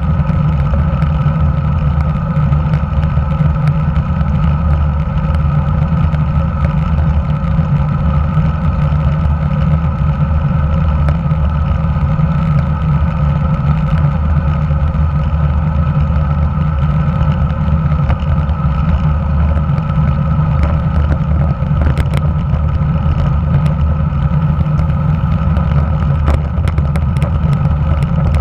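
Steady wind rumble and tyre road noise picked up by a camera mounted just below a road bike's handlebars while riding, with a faint steady hum over it. A few light ticks come in near the end.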